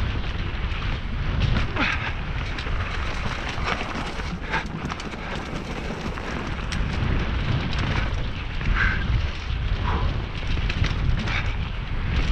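Mountain bike descending a dirt singletrack at speed: a steady low rumble of riding noise, with tyres running over dirt and leaves and frequent short rattling clicks from the bike over bumps.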